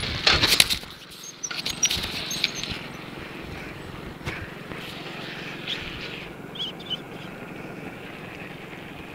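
Wind and road noise from riding a bicycle along an asphalt road, picked up on a handheld phone, mostly a steady hiss. A burst of rattles and knocks fills the first three seconds.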